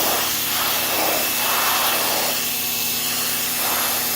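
PowerSmart 3000 PSI electric pressure washer running: a steady hum from its induction motor under the hiss of a low-pressure water jet on a wooden 2x4, the hiss swelling and fading as the spray moves across the wood.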